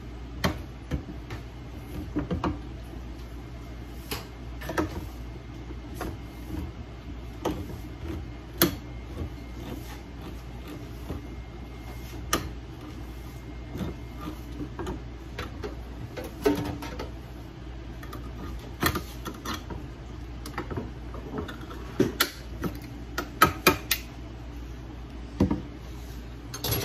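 A tin can being opened with a hand-held can opener: irregular metal clicks and scrapes, coming more thickly near the end, over a steady low hum.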